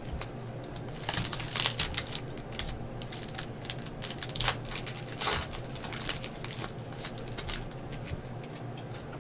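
Foil wrapper of a trading-card pack crinkling as it is torn open, with cards rustling as they are handled. There are irregular sharp crackles throughout.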